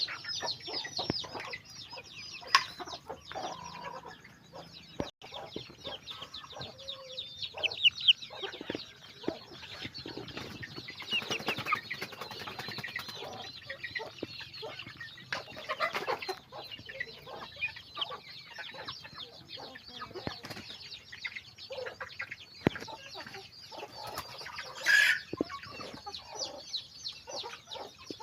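A flock of chickens: many chicks peeping in quick, high, falling cheeps and hens clucking, with one louder call near the end.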